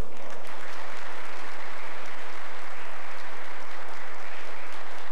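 Church congregation applauding: many hands clapping in a dense, steady patter that starts suddenly.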